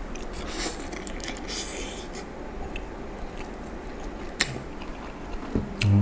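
Close-up mouth sounds of a person biting and chewing mantis shrimp meat: a run of small wet clicks in the first two seconds, one sharp click about four seconds in, and a short hummed "mm" at the end.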